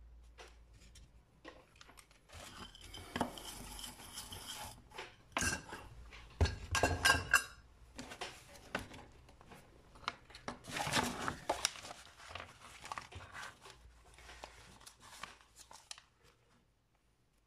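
Small tools and parts being handled on a wooden workbench: scattered clicks, light metal clinks and short scraping rustles, loudest in the middle, dying away near the end.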